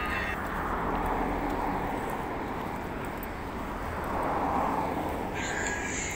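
Road traffic passing on the street alongside: a steady rush that swells twice as cars go by. Near the end comes a brief high-pitched squeal.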